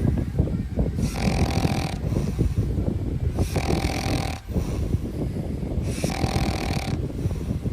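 A sleeping dog snoring: a low, rattling snore that runs on continuously, with a brighter breath sound about every two and a half seconds.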